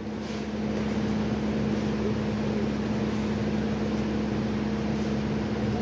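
Steady mechanical hum of room machinery, a low drone with a hiss over it, like a fan or air cooler running. Right at the end, one sharp click as a snooker cue strikes the cue ball.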